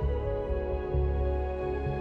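Calm ambient background music: held, sustained chords over low bass notes that change every second or so.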